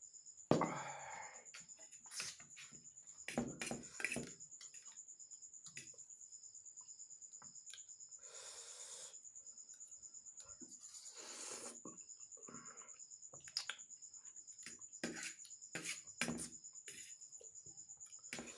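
Close-up eating sounds of Maggi instant noodles with raw onion: sharp bites, crunches and clicks, the loudest about half a second in, and two longer breathy slurps. Under them a cricket chirps steadily, a high rapid pulsing.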